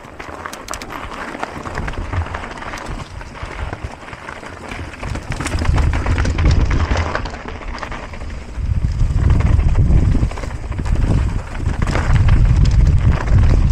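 Mountain bike riding down a rough trail: tyres rolling over dirt and stones, the bike rattling with many small clicks, and wind buffeting the microphone. The low rumble grows heavier about halfway through as the bike gathers speed.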